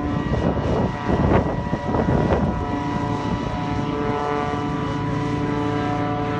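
Propeller aircraft engine running with a steady multi-toned drone, with a few rough, louder surges in the first couple of seconds.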